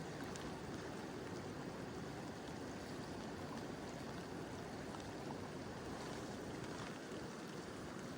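Mountain river flowing steadily, a constant even rush of water, with gentle rain falling.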